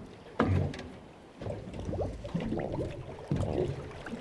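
Choppy water slapping against a small boat's hull, with wind on the microphone. A single sharp knock or splash about half a second in is the loudest sound.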